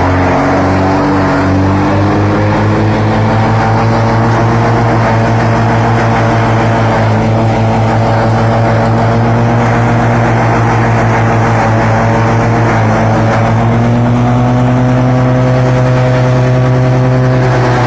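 Tractor engine running steadily under load, driving a PTO-powered silage chopper that chops green crop stalks and blows them out through its spout. The engine's pitch drifts slightly up and down and sags right at the end.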